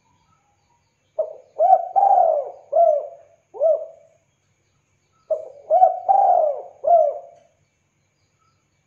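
Spotted dove cooing: two phrases of short, rounded coos, five in the first and four in the second, each coo rising and falling in pitch, with the middle coo of each phrase the longest. The phrases start about four seconds apart.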